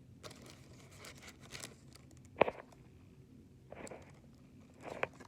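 Paper sandwich wrapper rustling and crinkling as it is opened and handled, in short scattered bursts, with one sharp tap about two seconds in.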